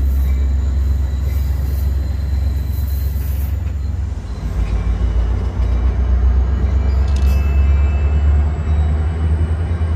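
A train passing close by, with a loud, steady low rumble.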